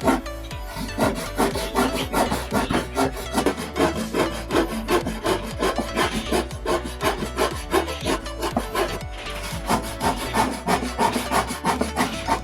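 Hand saw cutting wood in repeated back-and-forth strokes, about two to three a second, with a short pause a little past the middle.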